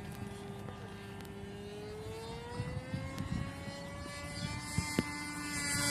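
OS Max .55 two-stroke glow engine of a radio-controlled Sporter model plane running at full throttle in flight, a high steady whine. From about two seconds in, its pitch rises and it grows louder as the plane closes in on a fast pass.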